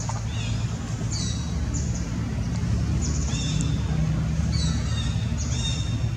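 Short, high, falling chirps repeat every second or so over a steady low hum.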